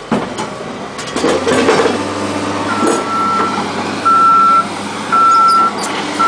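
Backup alarm of a reversing construction vehicle beeping at one pitch about once a second, starting about three seconds in, over its diesel engine running low. A few knocks come in the first two seconds.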